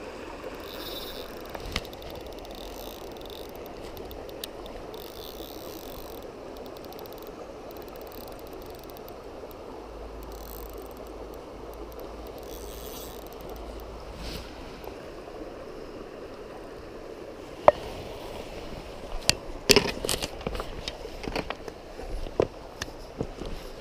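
Steady rush of river water flowing. From about 17 seconds in, a run of sharp clicks and knocks sounds over it, the loudest about 20 seconds in.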